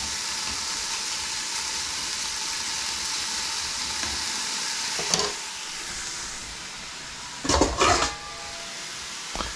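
Bacon sizzling as it renders in a frying pan, a steady frying hiss that eases off after about six seconds. A sharp knock about five seconds in and a louder brief clatter at about seven and a half seconds.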